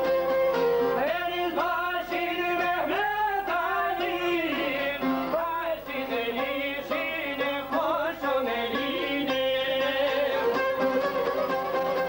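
Albanian folk music on çifteli and violin, with a man singing a wavering, ornamented line from about a second in until about two-thirds through. A held string note carries the opening and closing seconds.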